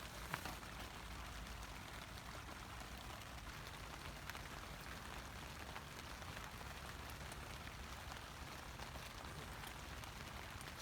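Steady, faint rain falling, with a couple of faint ticks.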